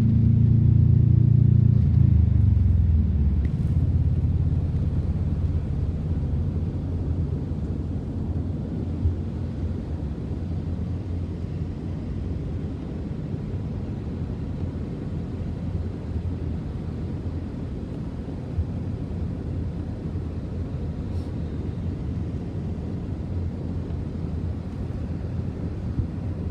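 A motor vehicle's engine running with a steady low rumble. It is loudest over the first few seconds, then settles to an even drone.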